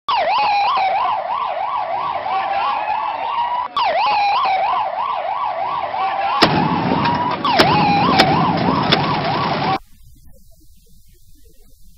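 Emergency-vehicle siren, yelping in quick up-and-down sweeps that ease into a slower rising wail, then starting over. About halfway a loud noisy rush joins it, with a few sharp bangs, and all of it cuts off suddenly near the end.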